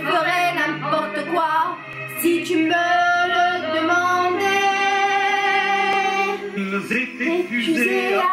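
French chanson with a woman singing, held through the middle on one long note with vibrato, over a low accompaniment.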